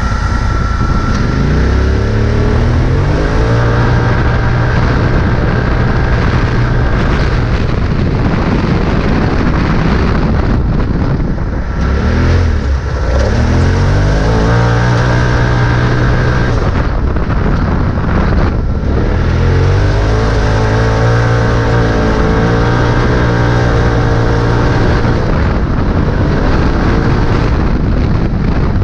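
Polaris RZR side-by-side engine under hard acceleration on a race run. The pitch climbs and then holds high, drops back, and climbs again three times, over a steady rushing noise.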